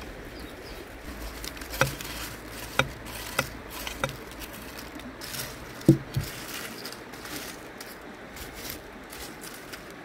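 A metal spoon and a metal plate knocking against a glass bowl as toasted flatbread pieces are tipped into yogurt and stirred. A few sharp clicks come between about two and four seconds in, and a louder dull knock about six seconds in, over a faint steady hiss.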